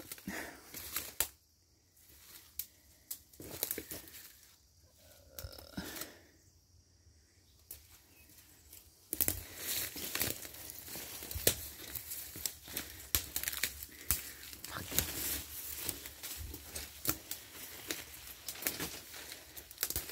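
Dry leaves and twigs rustling and snapping underfoot and against the body while walking through brush. Sparse crackles at first, then a dense, continuous run of crackling and snapping from about nine seconds in.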